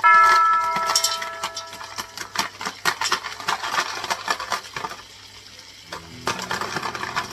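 A metal utensil strikes kitchenware with a ringing clink, followed by a run of quick clinks and scrapes of utensils against dishes and pans. A low steady hum joins near the end.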